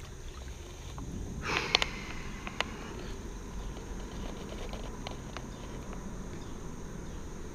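A small bass splashing at the surface as it is lifted out of the water on a frog lure, about a second and a half in, followed by a few light clicks of line and tackle handling.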